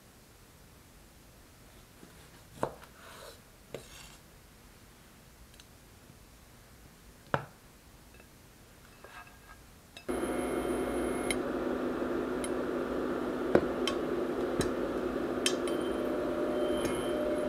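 A few sharp knife taps on a wooden cutting board as bacon is diced. About ten seconds in, a steady hum and hiss with a faint high whine starts suddenly: an induction cooktop running under a stainless pan of olive oil as it heats, with a few light ticks.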